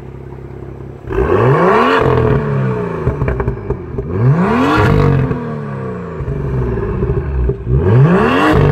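BMW M2's 3.0-litre turbocharged N55 inline-six idling, then revved three times through the M Performance exhaust with titanium tips, each rev climbing in pitch and falling back to idle. The revs start about a second in, around four seconds in, and near the end.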